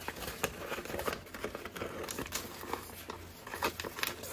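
Paper being handled and shifted about: scattered crinkles and soft clicks over a low steady hum.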